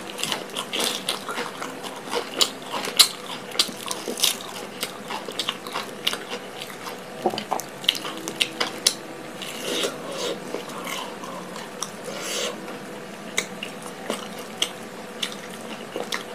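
Close-miked chewing and biting of fried glutinous rice cake: irregular sharp mouth clicks and smacks, several a second.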